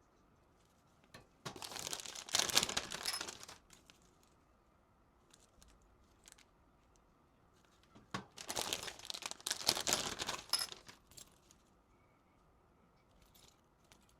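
Plastic blind-bag packaging crinkling as it is handled and torn open, in two bursts of about two to three seconds each, with a few faint clicks between.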